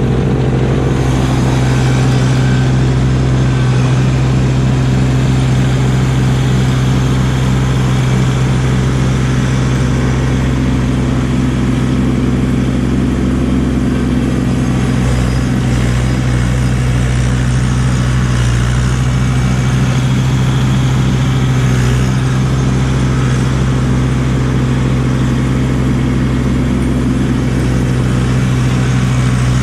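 Kubota LX2610 compact tractor's diesel engine running steadily, driving a front-mounted snowblower while clearing snow.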